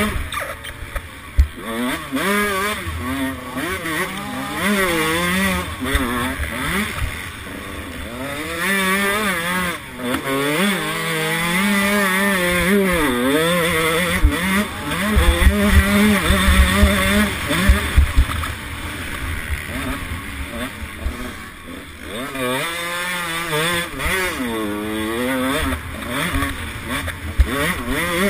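Motocross bike engine revving hard, its pitch climbing and dropping back again and again as the rider works the throttle round the track. Wind rumbles on the on-board microphone, with low thuds from the bumps, heaviest about halfway through.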